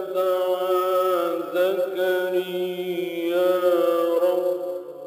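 A male reciter chanting Quranic verses in melodic tajweed style: one long drawn-out phrase held on sustained notes with slow, ornamented pitch turns, tailing off near the end.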